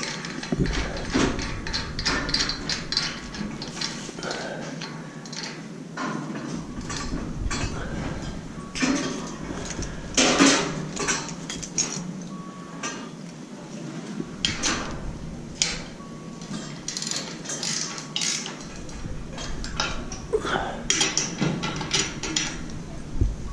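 Steel scaffold tubes and fittings clanking and knocking against each other in irregular metallic clinks as they are handled.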